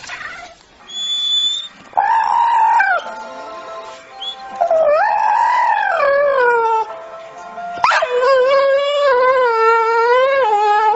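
A puppy howling: three long drawn-out calls, each wavering and sliding down in pitch at its end, the last one the longest.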